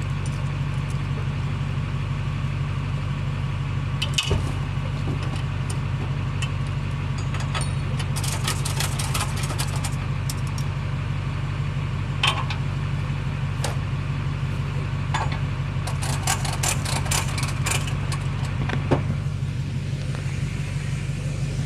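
Tow truck engine idling steadily, with scattered sharp metallic clicks and rattles over it. The clicks come in clusters about eight and sixteen seconds in.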